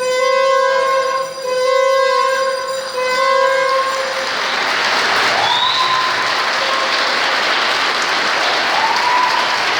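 A sustained musical note, held with brief breaks, ends about four seconds in, and a crowd breaks into applause. Two short rising cheers or whistles sound over the clapping.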